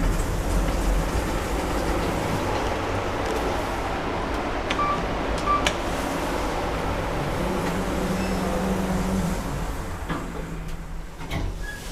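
Passenger lift car travelling, a steady rumble and hum. Two short high beeps come around the middle, and a low steady tone sounds for about two seconds later on.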